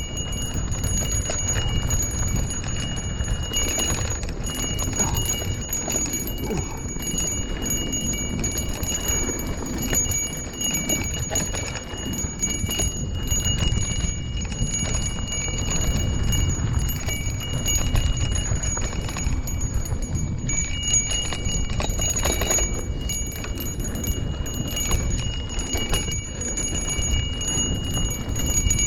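A handlebar bell rung over and over, its high ringing tones going on almost without pause, over a steady low rumble of wind and riding noise.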